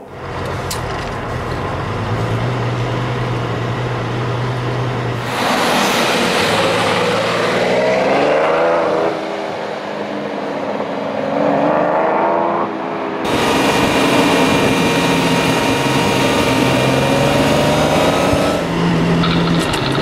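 Ferrari 512TR flat-twelve and Lamborghini Countach 25th Anniversary V12 engines at full throttle in a rolling race. The engine note runs steady at first, then climbs in pitch twice with a shift break between, then holds high and slowly rises.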